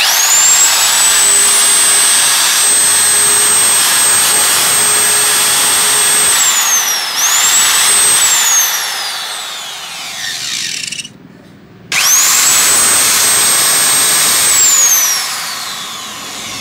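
Makete 110 mm electric tile cutter (1380 W) running with no load: its motor whine rises quickly to a steady high pitch, and the tool runs smoothly. About six seconds in it winds down, is brought back up briefly and winds down again, then after a second's stop it starts once more and winds down near the end.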